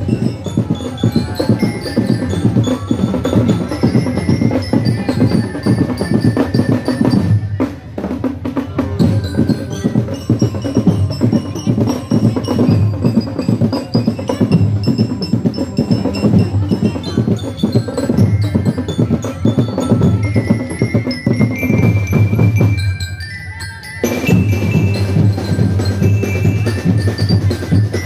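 Drums and percussion playing a fast, dense beat, with a high pitched melody over it. The sound drops out briefly near the end, then picks up again.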